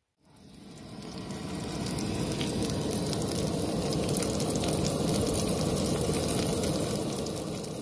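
Meat patties sizzling and crackling in a frying pan on a camp stove, fading in over the first couple of seconds and then holding steady.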